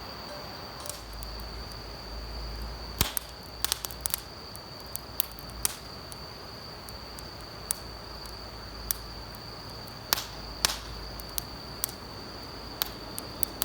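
Small wood fire crackling, with irregular sharp pops and snaps, over a steady high-pitched insect trill.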